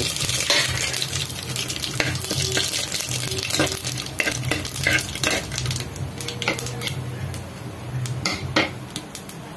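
Bay leaves and whole spices sizzling in hot oil in an aluminium pressure cooker while a metal slotted spoon stirs them, scraping and clicking against the pot's base and sides again and again.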